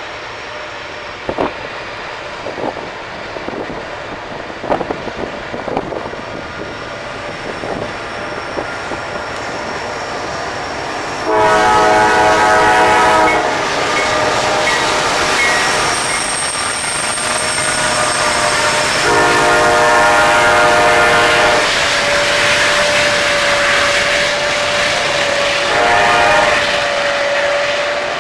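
A train passing close with its locomotive air horn sounding: two long blasts about a second apart in length, from about 11 s and about 19 s, then a shorter one near the end, several notes sounding at once. A rising rumble of the train runs beneath, with a few sharp clicks in the first several seconds.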